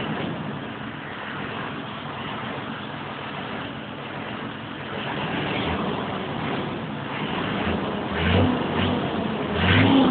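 Scania truck's diesel engine running steadily while its exhaust pours black smoke, a sign of bad combustion. Near the end it surges briefly twice, as if blipped on the throttle.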